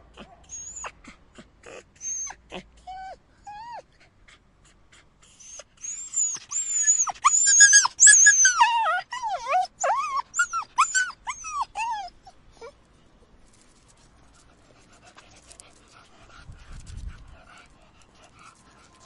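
Puppy crying: a few short, high whimpers, then from about six seconds a dense run of louder, overlapping whining cries lasting about six seconds. After that it drops to faint sound near the end.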